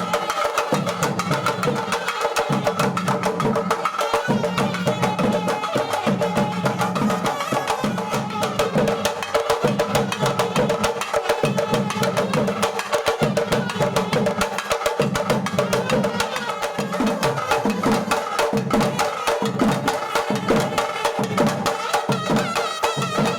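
Instrumental music with fast, busy percussion under a sustained melody; no singing.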